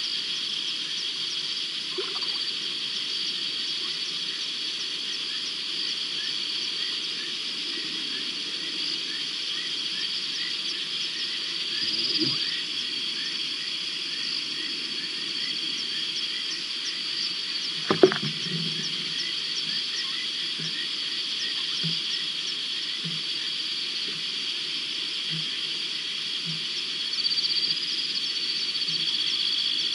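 Night chorus of frogs and insects: a steady high-pitched trilling laced with fast ticking calls, with occasional short low calls in the second half. A single sharp thump about eighteen seconds in is the loudest sound.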